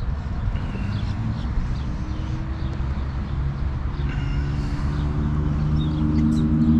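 A motor vehicle's engine running low and steady, growing louder over the last few seconds as it draws near, over a low outdoor rumble. A few faint bird chirps come through.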